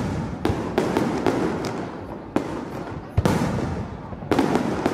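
Aerial firework shells bursting in the finale of a fireworks display: about half a dozen loud, sharp bangs at uneven intervals, each trailing off before the next.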